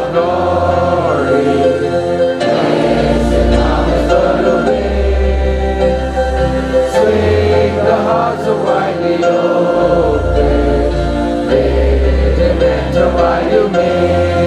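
Many voices singing a hymn together, with sustained low accompaniment notes that change about every one to two seconds.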